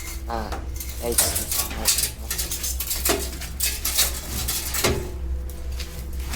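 Quick scraping and clicking strokes of hand tools working an electrical earth cable, over a steady low hum.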